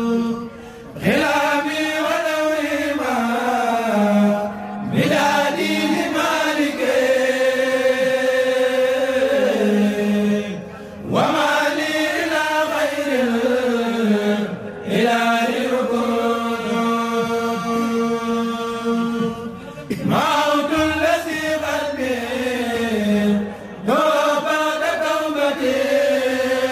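A kourel, a group of Mouride khassida singers, chanting an Arabic devotional poem without instruments. The chant runs in long melodic phrases with held notes, broken by brief pauses every four or five seconds.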